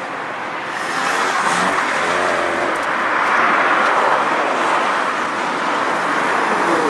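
Classic Mini's A-series four-cylinder engine revving up and down as the car is driven hard through a cone slalom, getting louder about a second in.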